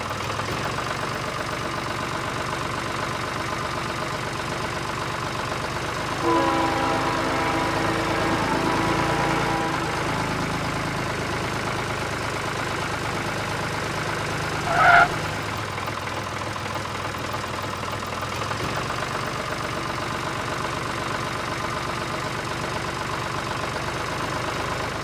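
Engine running steadily, as for a mini tractor at work. A pitched tone joins it for a few seconds about six seconds in, and there is a short, high toot at about fifteen seconds.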